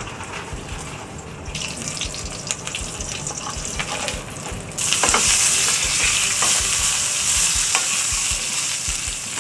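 Whole pigeon searing in hot fat in a skillet: a steady sizzle that swells about one and a half seconds in and gets much louder about five seconds in, with a few light clicks of tongs and a basting spoon against the pan.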